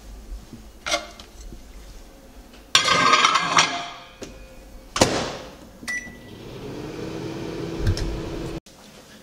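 Over-the-range microwave oven being loaded and started: a dish clatters onto the glass turntable, the door bangs shut, a keypad beeps, and the oven starts running with a steady hum that cuts off suddenly near the end.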